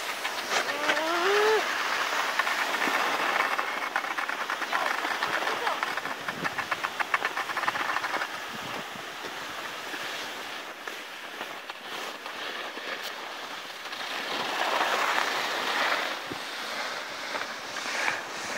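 Snowboard and ski edges sliding and scraping over packed piste snow, a rough hiss that swells and fades as the riders turn, with a fast rattling chatter of regular clicks for a few seconds in the middle.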